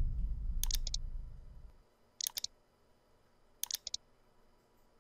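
Computer mouse clicks in short double and triple bursts, three times, as the cursor clicks a Subscribe button and then a notification checkbox. A low rumble dies away over the first couple of seconds.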